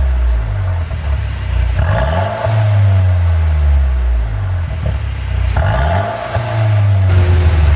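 Mercedes-Benz C200's turbocharged four-cylinder engine being revved again and again in short blips, its pitch rising and falling with each one, after an ECU and pop-sound tune.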